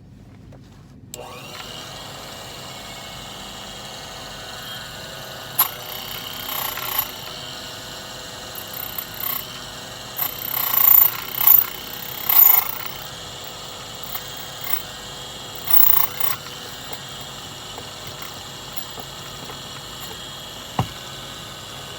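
Key duplicating machine motor starting about a second in and running steadily, with several louder stretches of its cutter cutting a copy of a Schlage key, and a sharp click near the end.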